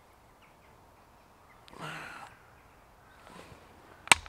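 Mostly quiet woods with one faint, harsh animal call about two seconds in. Near the end come two sharp clicks in quick succession.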